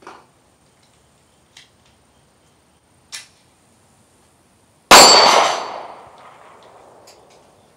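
A few faint clicks, then a single shot from a Glock 43 9mm pistol about five seconds in, followed by a long echo that dies away over about two seconds.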